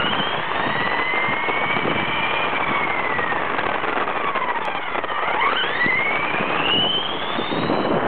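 Electric motor and gear whine of a Losi XXX-S 1/10-scale radio-controlled car, rising and falling in pitch with the throttle: it climbs, sinks to a low about five seconds in, then climbs again. Under it is a rough hiss of the small tyres rolling on asphalt, picked up close by a camera mounted on the car.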